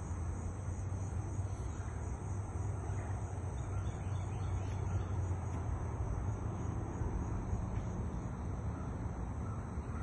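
Insects droning in a steady, high-pitched outdoor chorus over a low, steady rumble.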